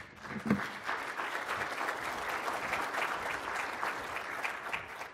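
Audience applauding: a dense patter of many hands clapping that builds up just after the start and dies away near the end.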